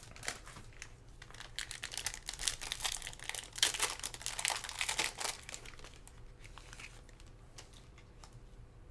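Foil trading-card pack wrapper crinkling as gloved hands pull it open. There is a dense run of crackles for the first five seconds or so, then only light rustles and clicks of handling.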